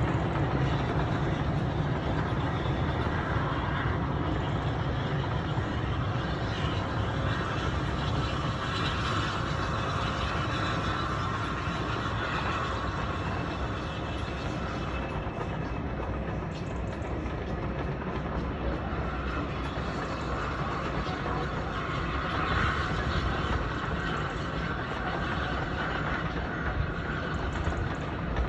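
The Flying Scotsman steam train running along the line: a continuous rumble of the train on the rails, swelling twice in a higher rushing note.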